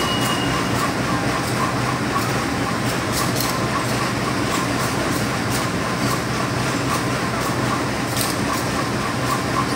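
Stainless-steel passenger train coaches rolling slowly past, with a steady rumble and irregular clicks of the wheels over rail joints. A thin high wheel squeal fades out just after the start.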